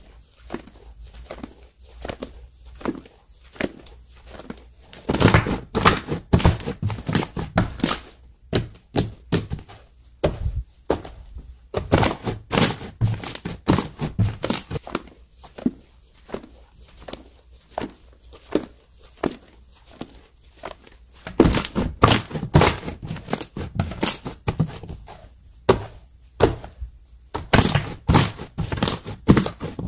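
White fluffy slime squished and pressed by hand, giving rapid sticky clicks and crackles that come in several loud runs with quieter clicking between.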